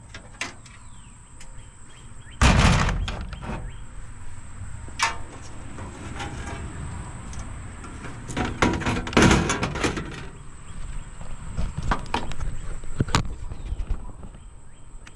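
Pieces of shred scrap, the leftover plastic and metal parts of a dismantled cassette deck, being handled and set onto a scale: a series of knocks and clattering, with a heavy thump about two and a half seconds in and a burst of rattling around nine to ten seconds in.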